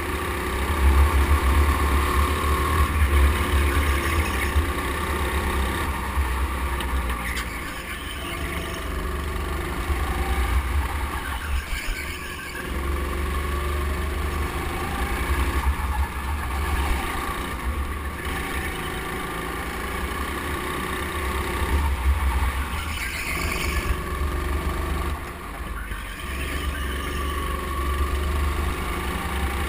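Go-kart running at speed on an indoor track, its motor droning steadily, with a deep low rumble that comes and goes every few seconds.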